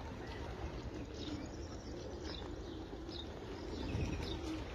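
Pigeons cooing in low wavering calls, mostly in the second half, with small birds chirping in short high notes every half second or so over a steady low outdoor rumble.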